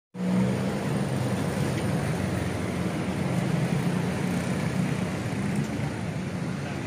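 Street traffic noise: a steady low engine hum with road noise, from motor vehicles running close by.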